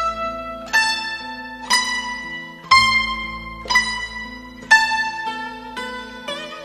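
Background music on a plucked string instrument like a zither, one note about every second, each ringing and fading away.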